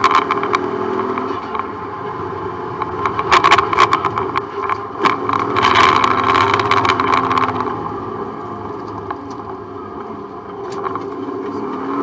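Subaru Impreza rally car's flat-four boxer engine at speed, heard from inside the stripped cabin, its note rising and falling through gear changes and a corner. Bursts of sharp clicks and rattles from the car come from about 3 to 7 seconds in.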